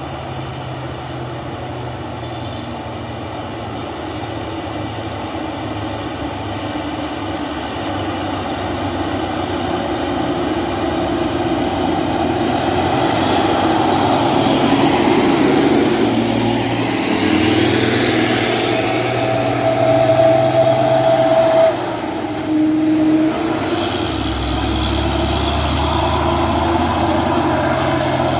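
Dump truck's diesel engine running loud on a steep hill road, swelling as the truck comes closer over the first half. A steady whine joins briefly about three-quarters through, then the sound drops suddenly and a deeper rumble follows.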